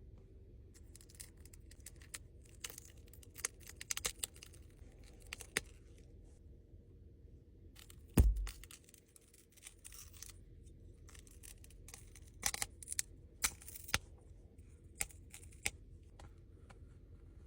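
Small objects being handled: scattered clicks and rustling scrapes, with one heavy thump about eight seconds in.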